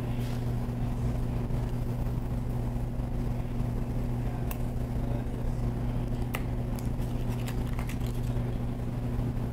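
Steady low machine hum, with a few small clicks as an oyster knife is worked into the hinge of a Pacific oyster's shell, about halfway through and near the end.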